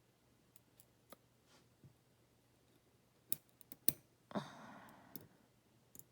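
Small metal clicks and taps from handling a disassembled padlock cylinder as its pins and springs are taken out, with two sharper clicks a little after three seconds and a brief scraping rustle about four seconds in.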